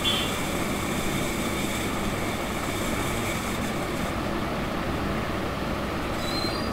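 Steady background room noise: an even hiss with a low hum underneath, unchanging in level.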